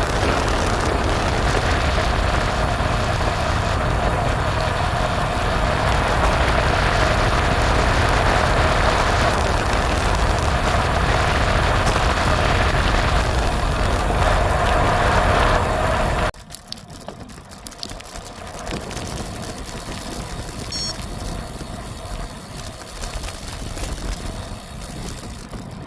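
Steady rushing noise of a bicycle ride: wind on the microphone and tyres rolling on the road. It cuts off sharply about sixteen seconds in, leaving a much quieter, uneven background noise.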